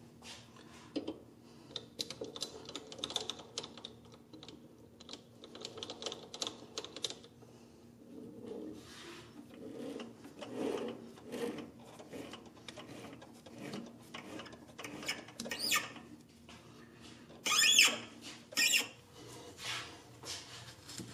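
Spiral point 1/4-20 tap cutting a thread in a bronze part: a long run of small irregular clicks and scraping ticks as the tap is worked in and backed off, with two louder short rasping bursts about a second apart near the end. A faint steady hum runs underneath.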